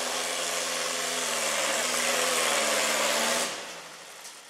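Volkswagen-engined rail buggy running hard on a climb, a steady engine note under a lot of noise. It cuts off abruptly about three and a half seconds in.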